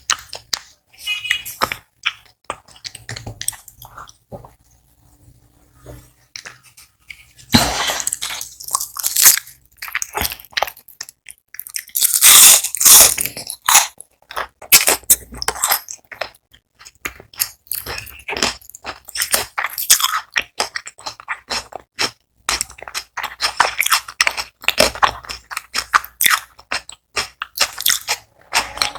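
Crispy battered onion rings being bitten and chewed close to the microphone: repeated loud crunches, with quieter chewing about five seconds in and the heaviest crunching around eight and thirteen seconds in.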